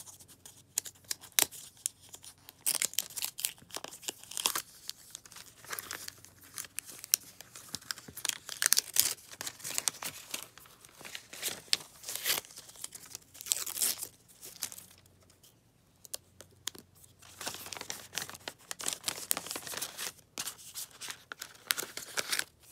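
Thin packaging wrap crinkling and tearing in irregular strokes as a pair of AirPods Max headphones is handled and unwrapped, with a quieter pause about two-thirds of the way through.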